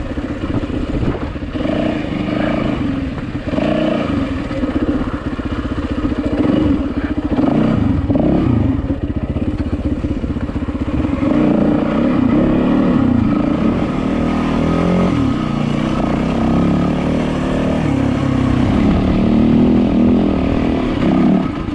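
Yamaha WR450 dirt bike's single-cylinder four-stroke engine running continuously at low to middling revs, the pitch and level rising and falling with the throttle as it picks its way over rocky singletrack, with some clatter from the bike over the stones.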